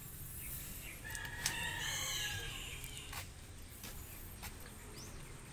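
A rooster crowing once, a single wavering call lasting about a second and a half, with a few faint clicks around it.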